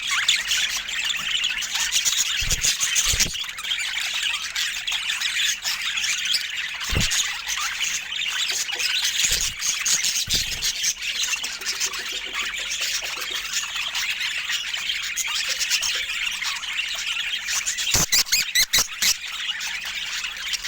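Pet budgerigars chattering and squawking without pause, a dense run of warbles and chirps. It is broken by a few soft knocks, and a quick cluster of clicks comes near the end.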